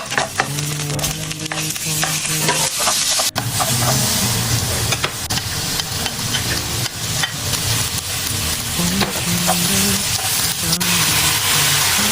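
Food sizzling and frying in a hot pan while it is stirred, a steady hiss broken by two brief cuts.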